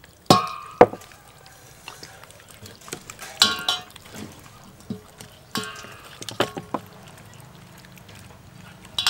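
Hands rubbing a dark sauce into a whole raw chicken in a stainless steel basin: wet squelching and slapping in short bursts. Two sharp clicks come in the first second.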